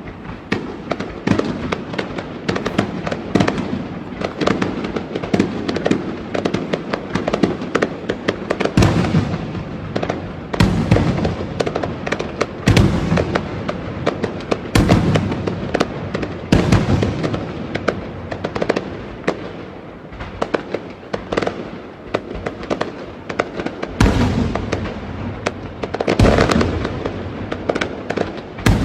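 Fireworks going off: a dense, continuous run of crackling pops and bangs, with heavier bursts about every two seconds for a stretch in the middle and again near the end.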